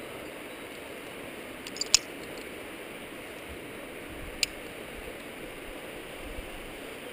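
Steady rushing of wind on a helmet camera's microphone, with two sharp clicks: one about two seconds in, just after a smaller one, and another about four and a half seconds in.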